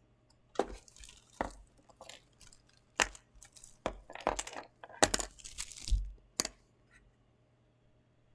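A small cardboard box and its plastic packaging being handled and opened: a string of sharp clicks, knocks and crackly rustles that stop about seven seconds in.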